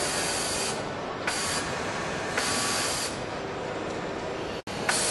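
Yamato VC2790G cylinder-bed interlock stitch machine running in three short hissing bursts, each starting with a click: a longer one at the start, a brief one just after a second and another around two and a half seconds in.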